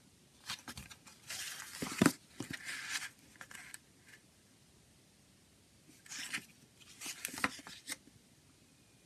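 Pages of a CD booklet turned by hand: paper rustling and sliding in two spells, with one sharp snap about two seconds in and a quiet pause in the middle.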